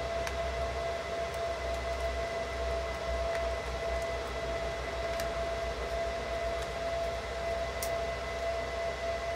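A steady high-pitched whine over a low hum and hiss, the noise that runs under the whole recording, with a few faint plastic clicks from a DJI Mini 2 drone arm being pried open with a spudger.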